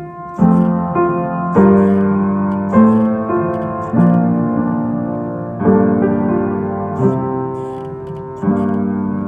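Slow solo piano music. A chord is struck every second and a half or so, and each is left to ring and fade.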